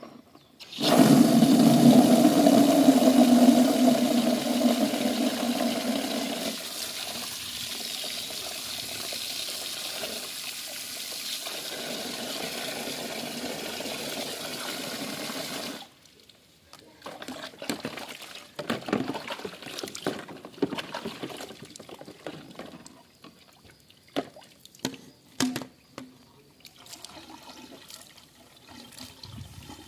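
Water pouring in a steady stream over the vacuum cleaner parts being rinsed, loudest in the first few seconds and stopping suddenly about sixteen seconds in. After that come scattered splashes and light knocks as the parts are handled in the water.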